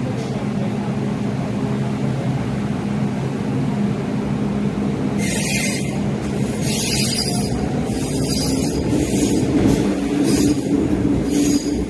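An MTR Kwun Tong Line train at an underground platform, humming steadily while stopped, then pulling out. From about five seconds in there are repeated hissing bursts, and from about nine seconds a rising motor whine as the train speeds up.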